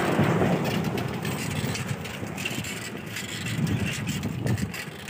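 Uneven low rumble of road traffic mixed with wind buffeting a phone's microphone, swelling and fading, with no clear engine note.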